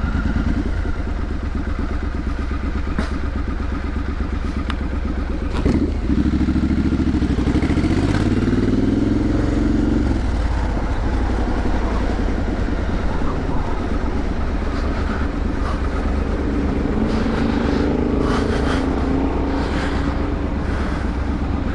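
Triumph Street Scrambler's 900 cc parallel-twin with an aftermarket exhaust running at low revs in slow traffic, a steady low rumble. Twice the engine note rises and wavers for a few seconds, about six seconds in and again near the end.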